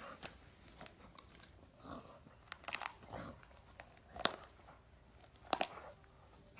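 A pit bull biting and scuffling with a snake on dirt ground: scattered short snaps and scrapes, the sharpest about four seconds in and again about five and a half seconds in.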